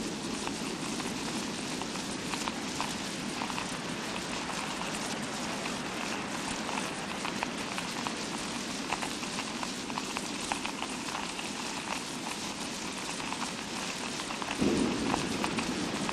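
Fake rain sound effect: a steady hiss of patter with many small drop-like ticks. A fuller, lower rush comes in suddenly near the end.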